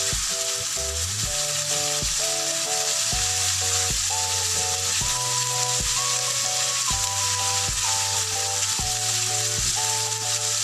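Ground pork with shallots and garlic sizzling steadily in a frying pan as it is stirred with a silicone spatula, under background music with a steady beat and a simple melody.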